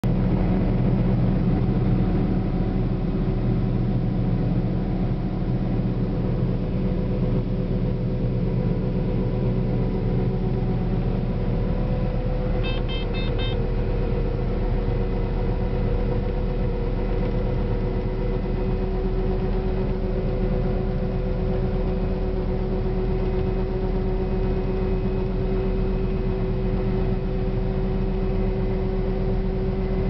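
Combine harvester running steadily while harvesting wheat: a steady engine and machinery drone with a low rumble and several steady tones. Around halfway through there is a brief run of electronic beeps.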